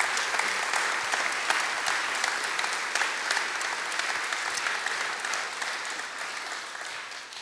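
Audience applauding, many hands clapping at once; the clapping dies away near the end.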